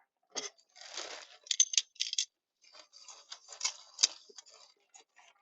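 Wood campfire crackling, with irregular sharp snaps and pops, the loudest between about one and a half and four seconds in, and a short hiss about a second in.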